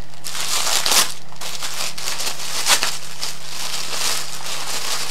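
Paper and card crinkling and rustling close to the microphone as a handmade paper pocket and its paper contents are handled, with a couple of sharper crackles.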